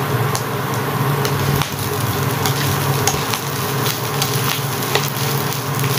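Sticky fried rice sizzling in a nonstick frying pan while a spatula stirs and scrapes through it, with frequent light clicks and taps of the spatula against the pan.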